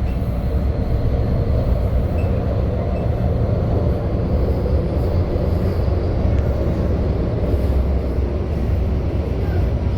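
Modern tram running between stops, heard from inside the car: a steady low rumble of wheels on rails and running gear, with no stops or changes.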